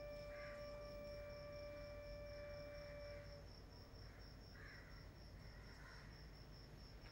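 Soft background music: one held note that stops about halfway through, over crickets chirping in a fast, steady pulse.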